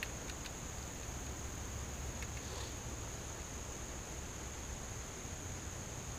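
Steady high-pitched drone of insects chirring in the surrounding field, with a few faint clicks near the start and about two seconds in.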